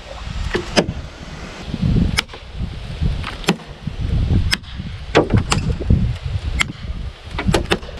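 An ESEE Junglas large chopping knife hacking into a weathered fallen tree trunk: about ten sharp chops at an uneven pace, several in quick succession near the end.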